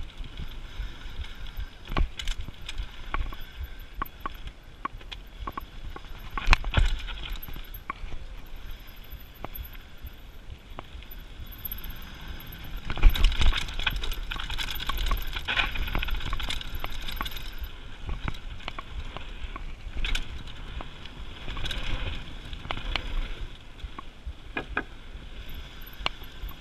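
Mountain bike riding fast down a dirt trail: tyre noise with the bike rattling and knocking over bumps, the sharpest knocks about six and a half and thirteen seconds in.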